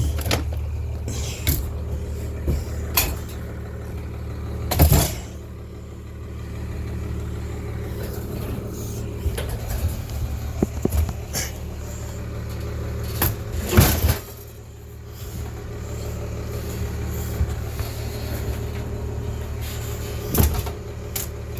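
Chainsaw being put away and hung back up: a series of separate knocks and clunks, the loudest about 5 s and 14 s in, over a steady low hum.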